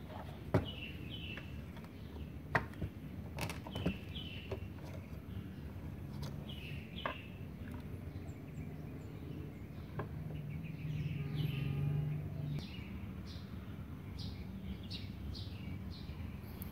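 Small birds chirping over and over with short falling calls, while a screwdriver and the metal contactor enclosure being handled give scattered sharp clicks and taps. A low hum comes in for about two seconds in the middle.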